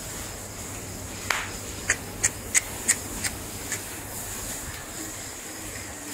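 Crickets chirping steadily, with a quick run of about seven sharp clicks between one and four seconds in.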